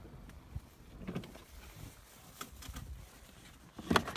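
Car moving slowly along a rough mountain track, heard from inside with the window open: a low rumble with scattered small knocks and rattles, and a few louder knocks near the end.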